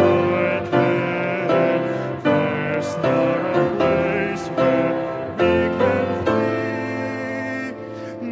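Hymn music with piano accompaniment, the chords changing in a steady beat a little faster than once a second.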